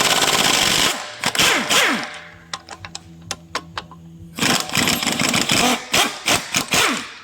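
Impact wrench hammering in two long bursts, its pitch falling as it spins down at the end of each, with a few metallic clicks in between.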